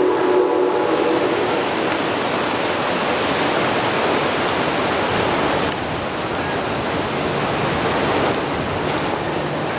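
The tail of a steam locomotive's multi-chime whistle fades out in the first second and a half. After it comes a loud, steady rushing hiss with no pitch.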